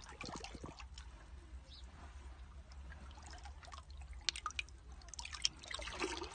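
A hand splashing and dabbling in the shallow water of a seashore rock pool, with scattered drips and small splashes; the sharpest come about four and five and a half seconds in, and a busier stir of water follows near the end.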